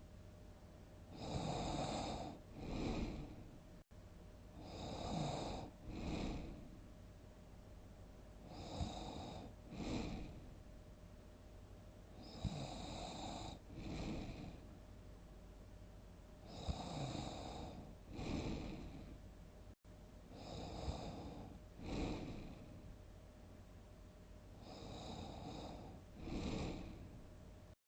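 A person snoring heavily in deep sleep, one big snore about every four seconds. Each snore comes in two parts: a longer rasping one, then a shorter one about a second later.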